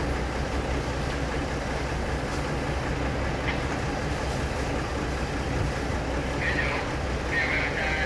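Diesel engine of a passenger train standing at the platform, idling with a steady low rumble. A few short high chirps come in near the end.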